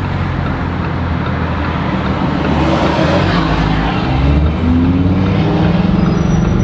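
Lamborghini Huracan EVO's 5.2-litre naturally aspirated V10 running loudly through its Akrapovic titanium exhaust in Corsa mode, the engine note rising as the revs climb about four seconds in.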